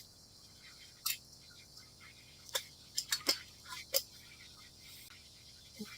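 A few scattered light clicks and knocks of handling, the sounds of moving about and picking things up.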